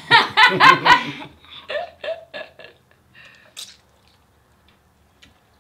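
People laughing and giggling, loudest in the first second, trailing off in a few short bursts. Then quieter mouth sounds as they bite into and chew their sandwiches, with one brief sharp sound about three and a half seconds in.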